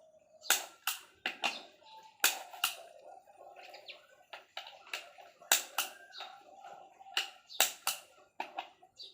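Torque wrench clicking, about a dozen sharp clicks in irregular clusters, as the crankshaft cap bolts are tightened to 3 kgf·m.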